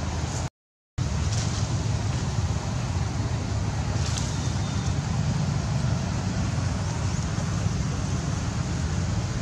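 Steady outdoor background rumble with no clear single event, cut by a brief dropout to silence about half a second in.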